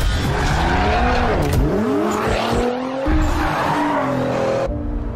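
Sports car engine revving, its pitch sweeping up and down several times, with tyre squeal; it cuts off abruptly near the end.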